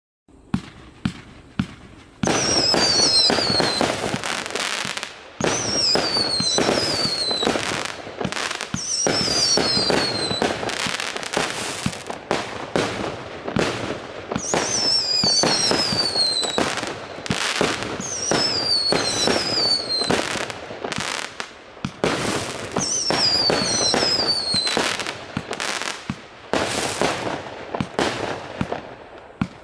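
A 99-shot fireworks cake firing: a few sharp pops at first, then a dense, continuous run of shots and crackling bursts in surges. Bundles of short falling whistles recur every few seconds.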